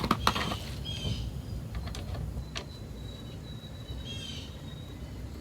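Birds chirping in short calls, about one second in and again about four seconds in, over a steady low background rumble, with a few light clicks of a part being handled near the start and again midway.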